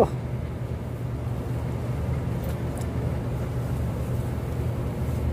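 Steady low engine-like drone running on without change, with a couple of faint clicks about two and a half seconds in.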